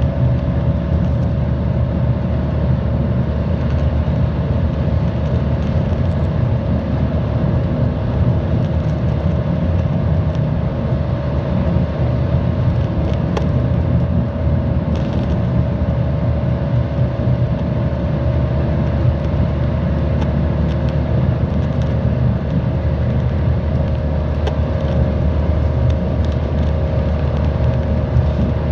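TheBus Honolulu city bus running steadily on the road, heard from inside the cabin: a constant low engine and road rumble with a steady whine and a few faint rattles.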